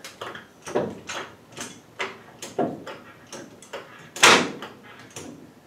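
Red hydraulic floor jack being pumped under the front suspension of a 1965 Ford Mustang, each stroke giving a short clunk, about two a second, with one louder clunk about four seconds in, as the jack raises the suspension to line the parts up.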